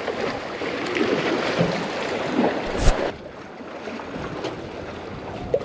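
Wind buffeting the microphone over choppy sea waves. About three seconds in there is one sharp, loud crack, and after it the wind and sea noise is quieter.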